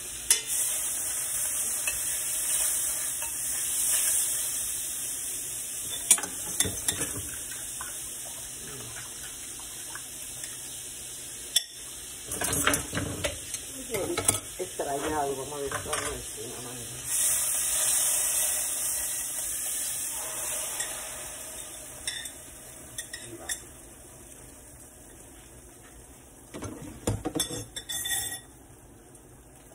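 Butter and oil sizzling in a stainless frying pan, with a run of clinks and knocks of a spoon and a glass bowl against the pan midway as beaten eggs with vegetables are poured in. The sizzling dies down near the end.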